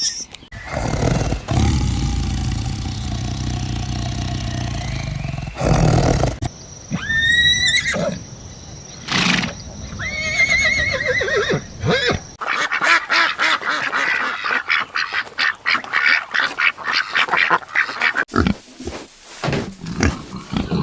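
A string of different animal calls in separate clips. A steady low rumble comes first, then a series of pitched calls that sweep upward, and then a fast, dense run of repeated short sounds.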